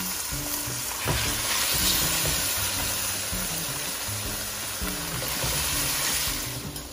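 Raw boneless chicken cubes sizzling in hot oil and paste in a pan, turned over with a spatula, with a knock of the spatula about a second in. The sizzle dies down near the end.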